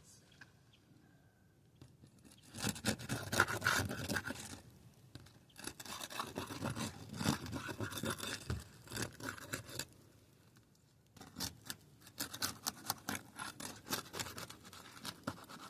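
Old 3-tab asphalt shingles being scraped and pried up, a gritty scraping and crunching with granules breaking loose. It comes in three stretches of quick strokes, with short pauses about 5 and 10 seconds in.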